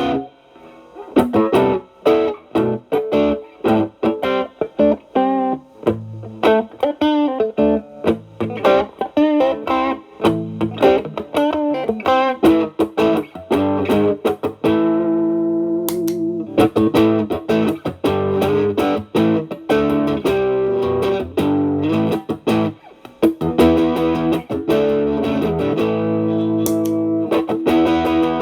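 Stratocaster electric guitar through an Xotic BB Plus preamp pedal, with Channel A boosting into Channel B's drive, into a Marshall Valvestate amp. It plays an overdriven lead of fast picked single notes, with a few longer held notes around the middle and near the end.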